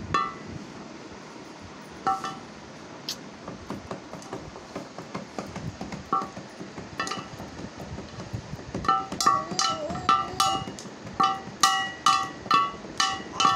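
Thin sticks striking an upturned metal plate, each hit ringing with a bright metallic clang. A few scattered strikes at first, then a quick run of beats from about two-thirds of the way through.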